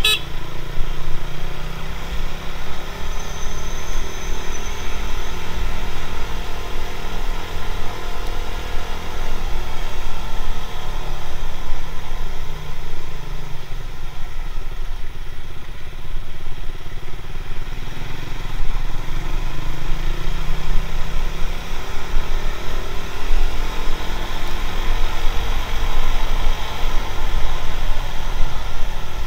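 Motorcycle engine running as it rides through traffic, its pitch rising and falling with the throttle, under a heavy low rumble of wind buffeting the action camera's built-in microphone.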